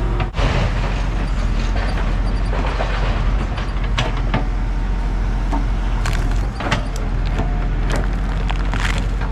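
Excavator's diesel engine running steadily at low throttle while it digs out a tree stump, with sharp metallic clanks and knocks from the bucket and machine several times.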